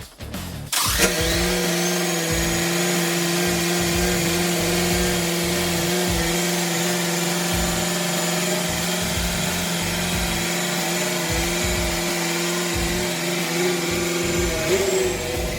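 A power tool's electric motor starting about a second in and running at a steady speed with a high whine, its pitch wavering briefly near the end.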